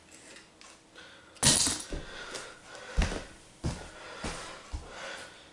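Small die-cast toy cars clattering against each other and the track, loudest about a second and a half in, followed by a few dull knocks about two-thirds of a second apart, like bare footsteps on a wooden floor.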